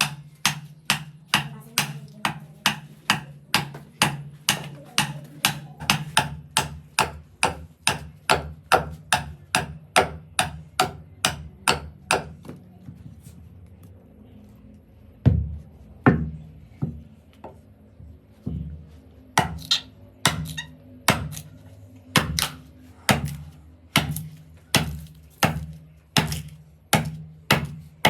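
Rhythmic blows of a hand tool striking wood, about two a second, with a steady low hum underneath. The blows stop for a couple of seconds about halfway through, then resume, first unevenly and then at the same pace.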